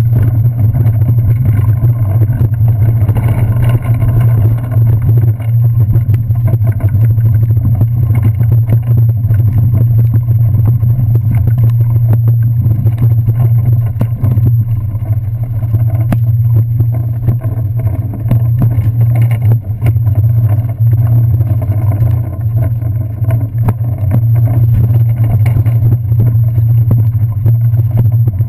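Bicycle riding over wet paving and metal walkway, heard through a handlebar-mounted camera: a loud, steady, muffled low rumble with frequent small knocks and rattles from the bumps.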